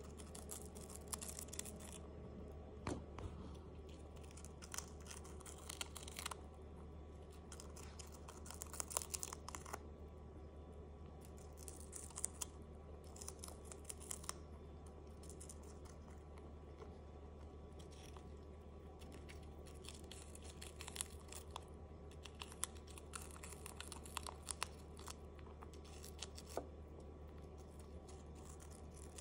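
Hamster nibbling and chewing a crisp romaine lettuce rib: irregular runs of quick, fine crunching crackles, over a steady low hum.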